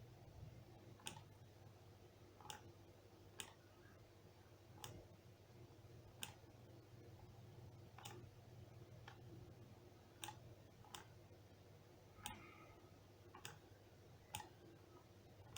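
Near silence broken by about a dozen faint, irregularly spaced clicks as a pen taps and lifts off the writing surface while a word is written out. A faint steady hum runs underneath.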